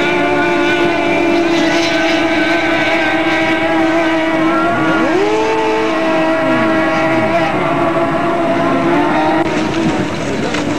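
Racing powerboat engines running at high revs, a steady high-pitched drone. About five seconds in, one engine's pitch climbs steeply, and falling pitches follow over the next two seconds.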